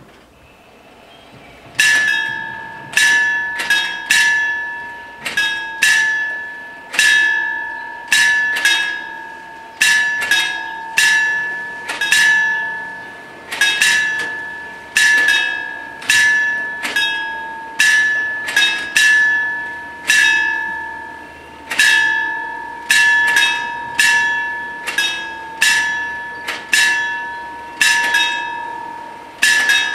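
Italian FS 64 level-crossing warning bells ringing, starting about two seconds in: two bells striking out of step, each stroke ringing on and dying away. It is the warning that a train is approaching, as the barriers begin to come down.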